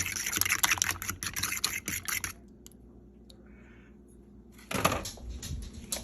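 Kitchen handling noises: a couple of seconds of rapid clicking and scraping, then a pause, then a single sharp knock near the end followed by a few lighter clicks.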